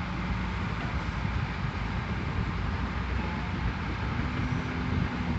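Steady engine drone with faint hum tones, under an even hiss.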